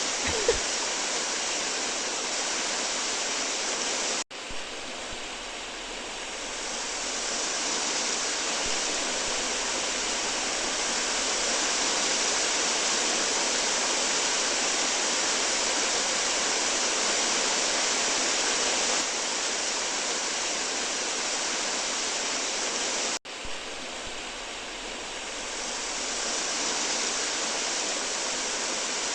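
Swollen, flooding river rushing, a steady, dense hiss of fast-moving water. The sound cuts out abruptly for a split second twice, about four seconds in and again later, then builds back up.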